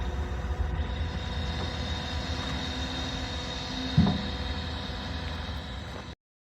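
John Deere 331G compact track loader's Yanmar four-cylinder turbo diesel running steadily, with a thin steady whine over the rumble. There is a single knock about four seconds in, and the sound cuts off suddenly near the end.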